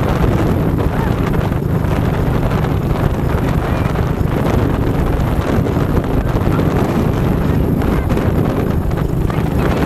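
ATV engine running steadily under way, with heavy wind buffeting the microphone.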